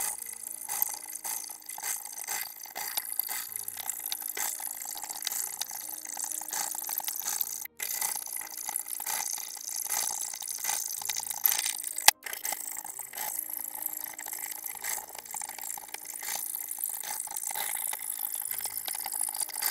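Hacksaw cutting through a clamped sheet of 1/8-inch 4130 chromoly steel, a fast, even run of back-and-forth sawing strokes. Twice, near the middle, the sound cuts out for an instant.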